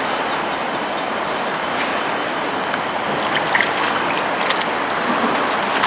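Shallow river water running steadily over stones. From about halfway through come light clicks and rustles as a cast net is handled.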